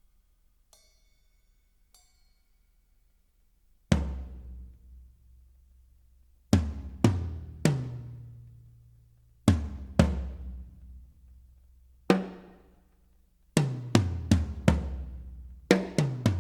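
Near silence for about four seconds, then single heavy drum hits with deep bass and a long ringing decay, played through a sound system under test. The hits come singly or in pairs a second or two apart, then quicken into a rapid run near the end.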